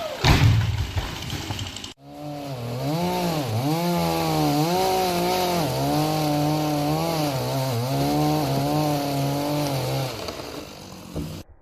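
Chainsaw cutting, its engine note dipping and rising in pitch for several seconds before it dies away near the end. A heavy thump comes just after the start, before the saw.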